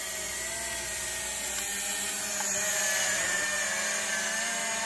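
TC-3 budget quadcopter drone hovering, its small motors and propellers giving a steady whining buzz whose pitch wavers up and down as it holds position.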